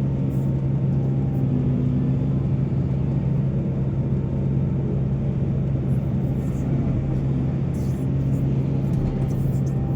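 Heavy diesel engine of mining machinery running steadily at a constant speed, a continuous low drone.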